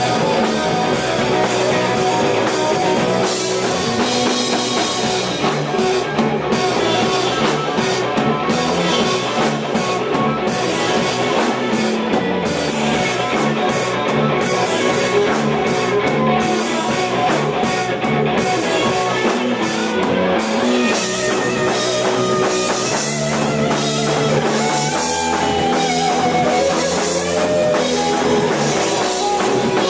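A rock band playing live, with electric guitar, bass and drum kit, loud and steady.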